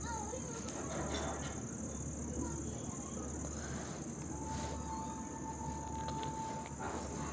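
Crickets chirring in a continuous high-pitched trill. A second, lower steady tone comes in about four seconds in and holds for a couple of seconds.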